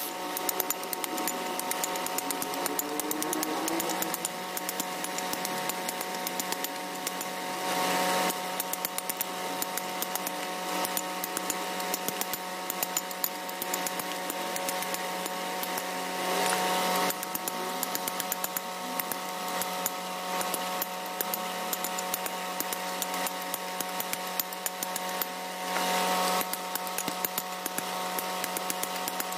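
Small hand pick-hammer chipping a hard river-stone slab being shaped into a cobek, a rapid run of sharp taps. A steady hum runs underneath, and three louder swells of about a second come roughly nine seconds apart.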